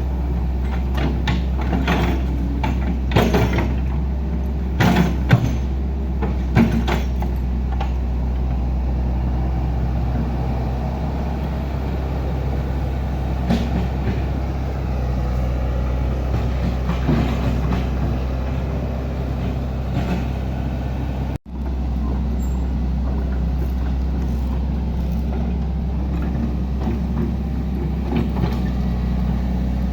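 Heavy diesel engine running steadily, with a few sharp metallic knocks and clanks in the first seven seconds. The sound cuts out for an instant about two-thirds of the way through.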